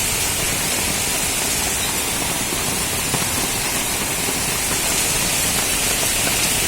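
Rain falling steadily: an even hiss with scattered faint ticks of drops.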